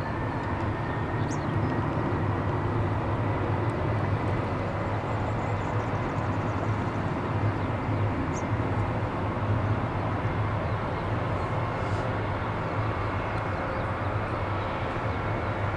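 Jet roar from a Boeing 747-338's four Rolls-Royce engines at takeoff power: a steady roar with a deep rumble and a faint whine slowly rising in pitch.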